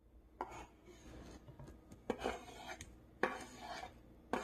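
Chef's knife blade scraping diced tomato across a plastic cutting board into a glass bowl: several separate scrapes about a second apart.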